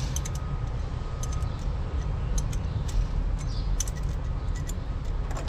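Scattered light metallic clicks of a hand wrench tightening a new zinc battery terminal clamp onto the post, over a steady low rumble.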